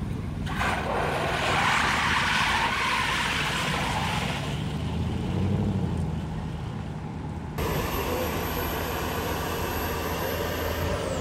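Cars on a city street: a rush of engine and tyre noise as a car passes in the first few seconds, over a steady engine hum, changing abruptly near the end.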